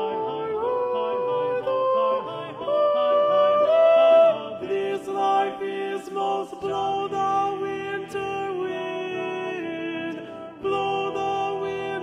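Music: a slow song with a singing voice holding and gliding between notes over guitar.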